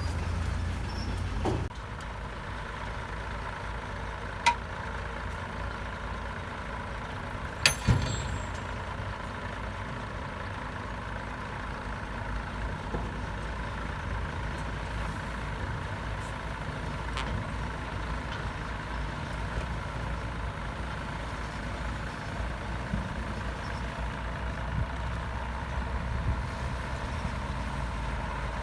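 Heavy diesel earthmoving machinery running steadily, its low engine rumble dropping a little shortly after the start. A few sharp knocks cut through, the loudest a quick pair about eight seconds in.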